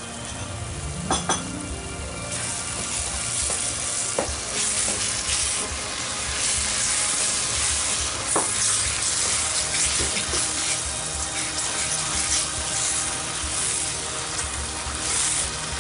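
Yogurt and spice masala sizzling in hot oil in a kadai, stirred with a wooden spatula, with a few knocks of the spatula against the pan. The sizzle swells about two seconds in as the yogurt is worked into the masala to fry.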